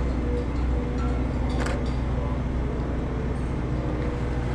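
Steady low mechanical hum, with a single short metallic clink about a second and a half in.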